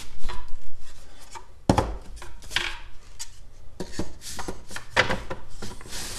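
Assembled wooden Langstroth beehive frames of pine being flipped over and stacked by hand. Several wooden knocks and clatters, the sharpest about two seconds in and a cluster between four and five seconds, with wood sliding and rubbing against wood between them.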